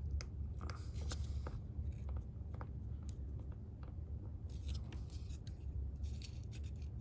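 Light handling noises at a workbench: scattered small clicks and brief scrapes, over a steady low hum.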